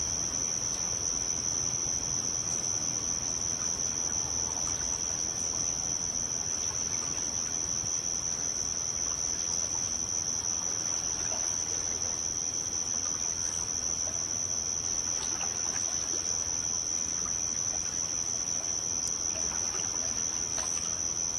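A steady, high-pitched shrill tone that holds one pitch throughout, over a soft even hiss with a few faint scattered clicks.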